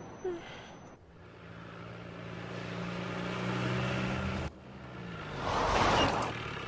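Cartoon car engine running steadily and growing louder as it speeds closer, then dropping slightly in pitch. Near the end comes a loud rushing skid as the car pulls up.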